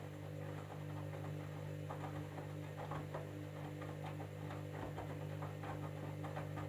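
Candy washing machine running a jeans cycle: a steady motor hum with many irregular light clicks and taps from the drum.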